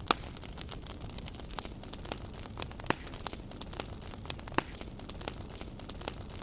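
Campfire crackling: irregular sharp snaps and pops, the loudest just after the start, about three seconds in and a little past four and a half seconds.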